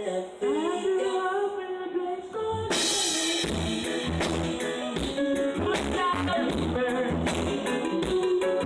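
Live reggae band at a sound check: a singer over held instrument notes, then the drums and bass come in with a cymbal crash a little under three seconds in and carry on in a steady beat.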